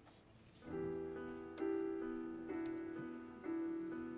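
Keyboard playing a slow piano part: a chord struck about once a second, each ringing on and fading until the next. It comes in under a second in, after a brief near-silent gap.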